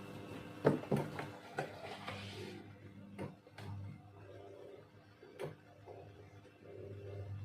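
Cold laminating press in operation: irregular clicks and knocks from its mechanism, with a brief hiss about one to two and a half seconds in.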